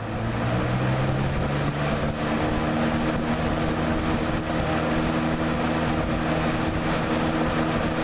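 Vintage Westinghouse AW12-1 box fan with a Marco motor and a wide plastic blade, just switched to high. The motor hum rises in pitch over the first second or so as the blade speeds up, then settles into a steady hum with a rush of air.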